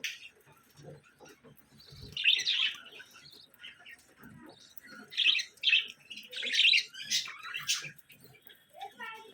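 Pet budgerigars chirping and chattering in short, scratchy bursts, several clusters a few seconds apart, with a few soft low knocks between.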